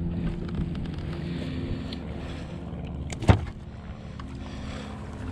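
Electric bow-mount trolling motor humming, its pitch shifting slightly, under small rattles and clicks from a mesh landing net as a bass is unhooked in it. One sharp knock about three seconds in.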